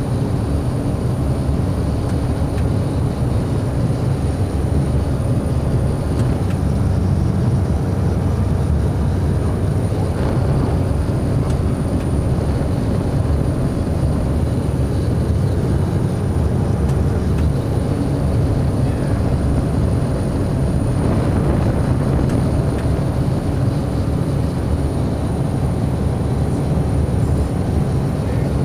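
Cessna Caravan amphibian's single Pratt & Whitney PT6A turboprop engine and propeller running steadily in flight, heard from inside the cockpit as a loud, even low drone with a thin high whine over it.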